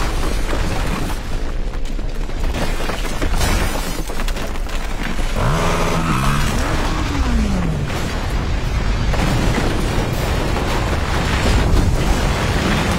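Dense action-film sound mix: a constant deep rumble with booms of falling rock and debris under music. About halfway through, a dirt bike engine passes close, its pitch rising and then falling away.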